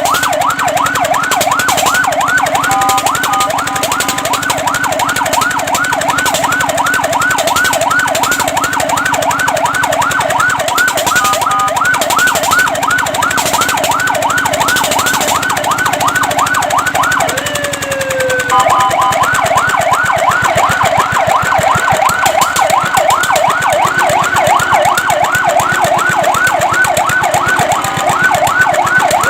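Fire truck siren sounding in a fast electronic yelp, its pitch sweeping up and down about three or four times a second. It breaks off briefly a few times, once for a longer gliding tone about two-thirds of the way through, then carries on yelping.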